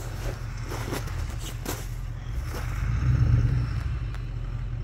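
Lifted pickup truck's engine running as it crawls up a snowy trail, swelling louder about three seconds in as it takes more throttle, with a few light crunches in the first two seconds.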